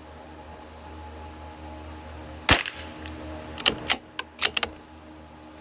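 A .22 LR bolt-action rifle fires a single sharp shot about halfway through. It is followed about a second later by a quick run of sharp clicks and knocks as the bolt is worked to chamber the next round.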